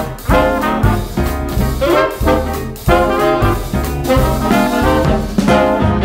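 Upbeat background music with a steady beat, about two beats a second.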